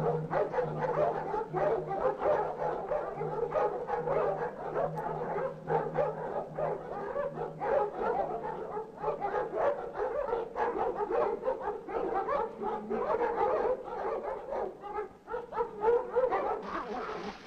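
Dogs barking and yelping, many calls overlapping without a break, over a low hum that fades out about halfway through.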